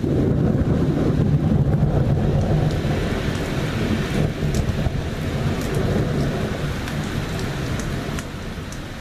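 Thunder from a lightning flash: a heavy low rumble, loudest in the first few seconds, then rolling away and fading. Steady rain falls underneath, with a few sharp drip taps near the middle and end.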